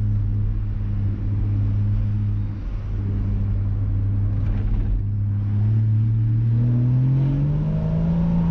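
A Porsche Boxster 981's 2.7-litre six-cylinder engine, heard from the open cockpit with the roof down, pulls at steady low revs. For the last two seconds or so its pitch rises as the car accelerates.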